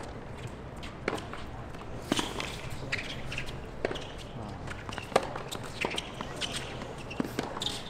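Tennis rally on a hard court: sharp pops of the ball coming off the racquets about once a second, with ball bounces and players' footsteps between them.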